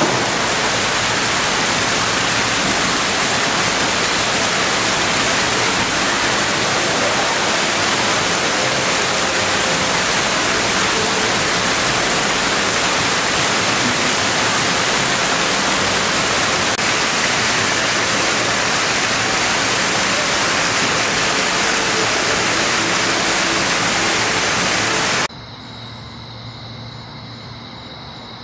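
Water falling over the ledge of a fountain into its pool: a loud, steady rush. It cuts off suddenly near the end, leaving a quieter hiss with a thin, steady high-pitched tone.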